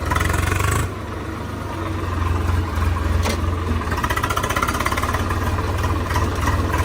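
Tractor diesel engine running steadily under way, a strong even low beat, louder for the first second.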